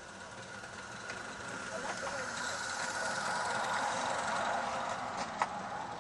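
A 16 mm scale garden-railway train running past on the track, its sound swelling and then easing. There is a sharp click near the end.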